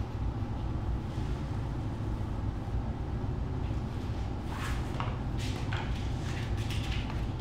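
Steady low room rumble, with a few faint rustles and soft taps about two-thirds of the way through as a body shifts and sits up on a yoga mat.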